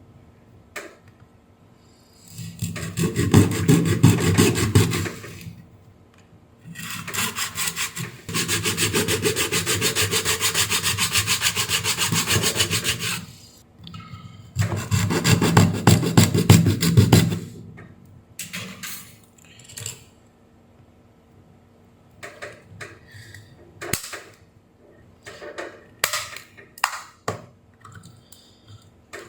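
The sealed plastic case of an AC adapter being cut open along its seam, with rasping sawing strokes in three bouts, the longest in the middle. Scattered clicks and taps follow in the last part.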